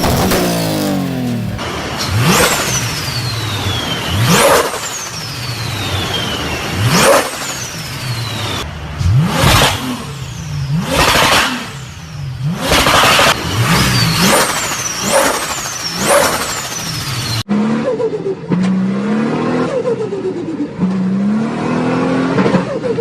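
Turbocharged car engines blipped hard over and over, about every two seconds. Each rev is followed by a falling turbo whistle and the stuttering flutter of compressor surge as the throttle snaps shut. After a sudden change about two-thirds in, another engine revs up and down.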